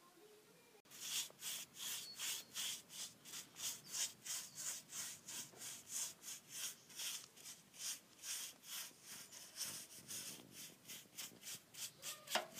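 Paintbrush stroking black paint back and forth over a cast iron stove's front, in short quick strokes of about three a second, starting about a second in.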